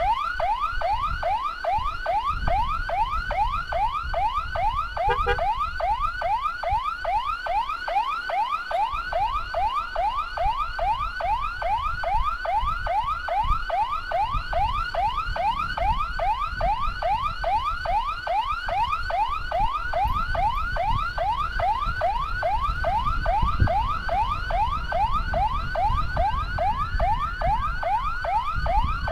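Electronic siren on an escort vehicle sounding a fast yelp: a rising whoop repeated about three times a second, over low road and wind rumble. Near the end a second, slower siren tone rises and then falls.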